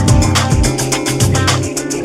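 Background music: upbeat Latin-style track with plucked guitar and a steady percussion beat.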